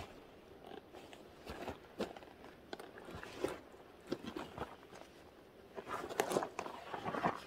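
Rustling and scattered clicks of a framed child-carrier backpack's straps and buckles being handled as a toddler is lifted in, with shoes shuffling on gravel. The rustling grows busier near the end.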